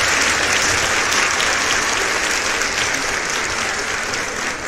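Applause: many hands clapping in a dense, even patter that slowly fades.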